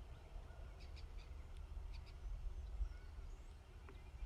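Faint outdoor birdsong: a few short chirps and a thin whistled call, over a steady low rumble.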